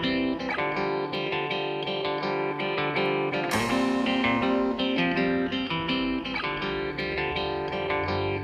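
Background music led by plucked guitar, with a steady run of picked notes.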